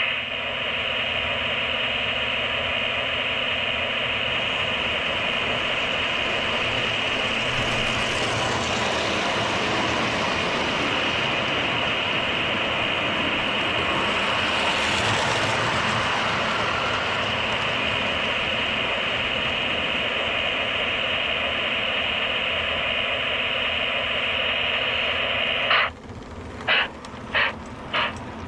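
O gauge model train running on the track layout, a steady whirring hum with a high steady tone that swells as it passes close by. Near the end it gives way to a rhythmic pulsing, about two beats a second.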